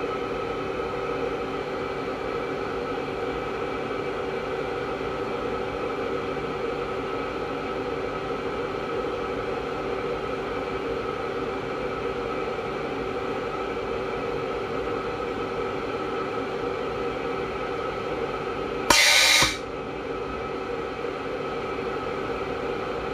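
Steady mechanical hum with several held tones from an air-atomising aeroponic misting system, and near the end one loud half-second hiss as the compressed-air mist nozzle fires a burst of mist.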